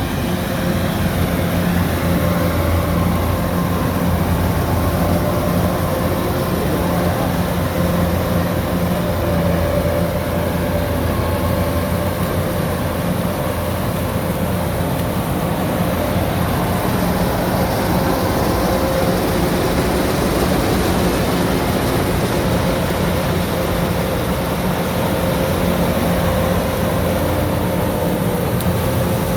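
Kubota DC-105X combine harvester running steadily while cutting rice under load, its diesel engine and threshing machinery making a constant drone with a low hum.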